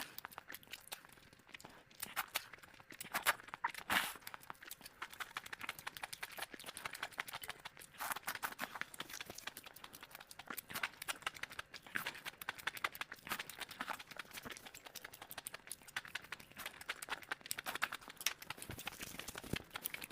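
Close-miked eating sounds: rapid chewing, wet smacking and crunchy clicks, played back at double speed.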